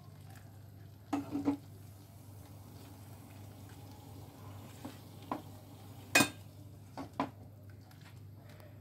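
Hot water poured into a frying masala in a non-stick frying pan, then stirred with a spatula, with light sizzling over a steady low hum. Several sharp knocks of the spatula against the pan, the loudest about six seconds in.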